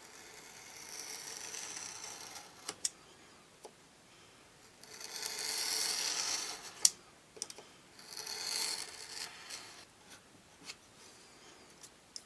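Hand rubbing or abrading on a small part: three spells of scratchy rubbing, the middle one the longest and loudest, with a few sharp clicks and taps between them.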